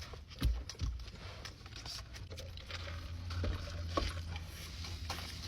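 Close-miked eating: chewing and small clicks and rustles of food being handled, with a couple of low thumps about half a second in.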